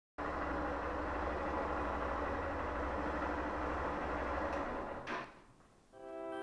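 Roll-up metal shutter door rising, a steady mechanical rattling hum that stops after about four and a half seconds, followed by a short clack.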